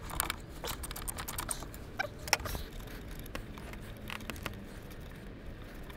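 Scattered light clicks and rattles of plastic and metal parts being handled beside a car battery in the engine bay, coming at an irregular pace.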